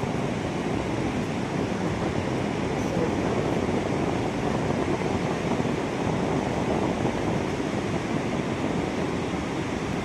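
Steady rushing noise of the falling water at Niagara Falls, even and unbroken.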